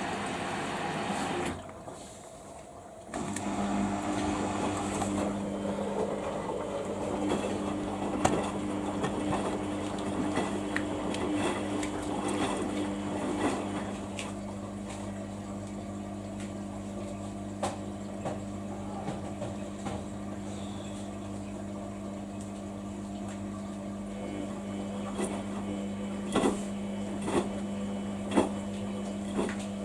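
Samsung washing machine running its 15-minute quick wash. The sound drops away briefly about two seconds in, then a steady hum starts up and keeps on, with a few sharp clicks near the end.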